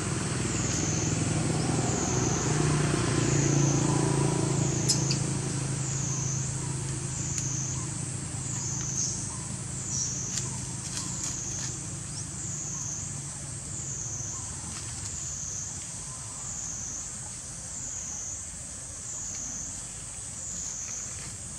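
A high insect drone that wavers up and down in pitch about once a second. Under it runs a low hum that swells over the first few seconds and then fades away, with a few faint clicks.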